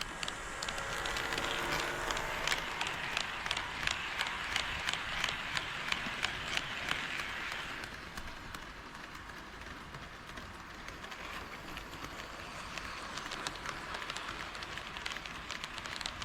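KATO HO-scale D51 model steam locomotive running on sectional track, its wheels clicking steadily over the rail joints. It is louder for the first half, with stronger clicks about twice a second, then quieter as it moves off.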